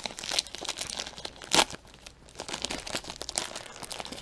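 A 1988 Score baseball card pack's paper wrapper being torn open and peeled apart by hand: irregular crinkling and tearing, with the sharpest tear about one and a half seconds in.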